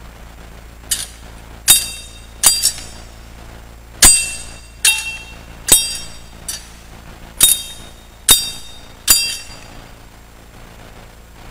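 Metal thurible (censer) swung over the coffin, its chains and lid clinking against the bowl about ten times, roughly once a second, each clink ringing briefly: the incensing of the coffin at the final commendation.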